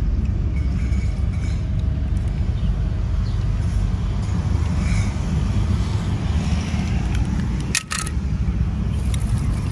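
Steady low rumble of wind buffeting the microphone. It breaks off for a moment with a click about eight seconds in.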